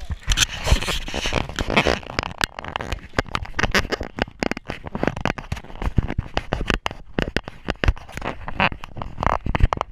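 Rubbing, scraping and knocking on a camera strapped to a dog's back as the dog moves, its fur and sweater rubbing over the microphone: a dense, irregular run of clicks and scrapes.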